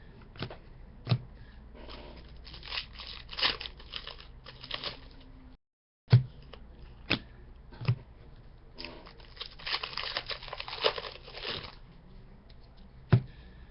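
Hockey card pack wrappers being torn open and crinkled, with cards handled and a few sharp taps. There are two main stretches of ripping and crinkling, separated by a brief gap of complete silence near the middle.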